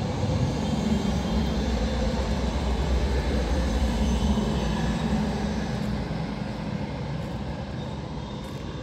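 Articulated electric city tram passing close by: a steady rumble of wheels on rails that fades over the last few seconds as it moves away.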